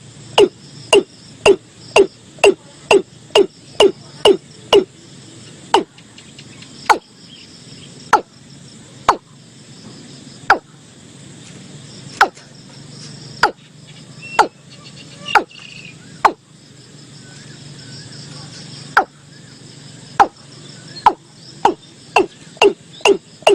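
Male watercock calling: a series of short, hollow knocking notes, each falling in pitch. They come about two a second at first, slow to one every second or so, pause for a few seconds, then pick up speed again near the end.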